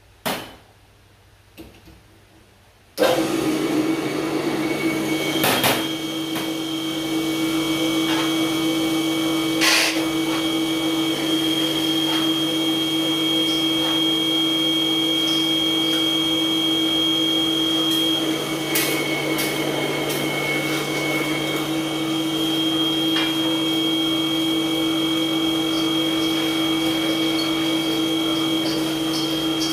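Stainless-steel electric peanut-butter grinder switched on about three seconds in, then running steadily with a constant motor hum. A few sharp clinks sound over it.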